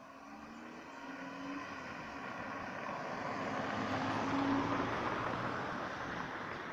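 Car passing close by: engine and tyre noise growing as it approaches, loudest about four and a half seconds in, then fading as it drives away.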